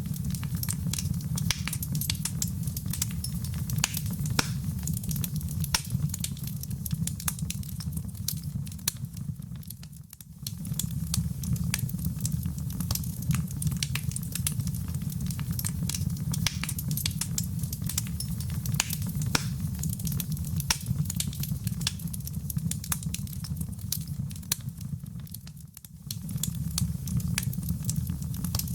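Fireplace fire burning with a steady low rumble and constant sharp crackles and pops. Twice the sound fades briefly and comes straight back, about ten seconds in and a few seconds before the end.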